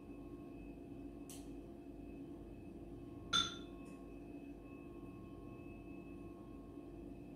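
A metal utensil clinks once against a bowl with a short ring, while large bones are picked out of canned sardines. A fainter tap comes about two seconds earlier, and a steady faint hum runs underneath.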